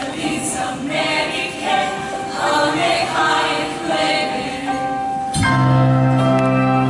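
Show choir singing in harmony over musical accompaniment. About five seconds in, the music suddenly gets louder with held low notes, as an instrumental passage takes over.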